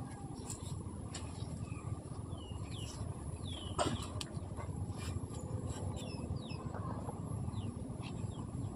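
Small birds giving short, high, downward-sliding chirps every second or so over a steady low outdoor rumble. A single sharp click comes a little under four seconds in.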